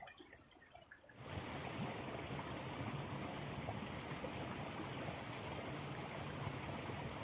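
Flowing stream water, a steady rushing that starts abruptly about a second in.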